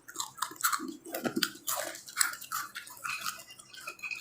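Close-up chewing of crunchy spicy fried macaroni snack: irregular crunches and wet mouth smacks.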